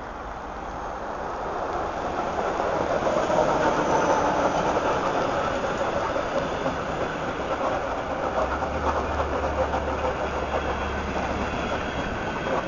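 Electric commuter train approaching and running past at speed: a rising rush of wheels on rails, loudest about three seconds in, then a steady rumble with rapid clacks over the rail joints as the cars go by.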